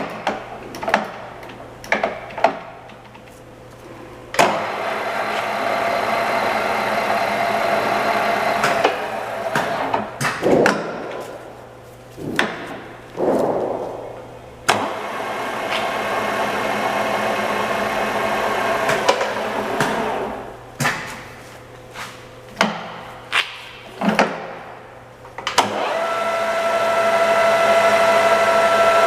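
Takisawa TSL-800 lathe on a test run: the spindle and headstock gearing run, spin down and start again several times, with sharp clicks and knocks between the runs. Near the end it runs steadily with a clear gear whine.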